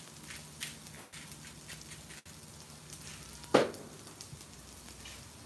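Spaghetti frying on a hot Blackstone flat-top griddle: a quiet sizzle with scattered crackles and pops, and one sharp tap a little over three and a half seconds in.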